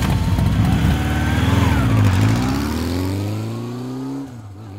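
Motorcycle engine revving. After a stretch of rough, busy engine noise the pitch climbs steadily for about two seconds, drops sharply about four seconds in, then settles into a steady tone that fades.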